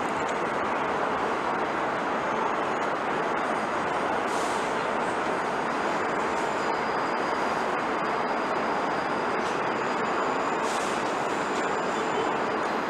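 New York City subway train running along an elevated steel viaduct: a steady rumble of wheels on the track, with a faint high whine for a few seconds in the middle.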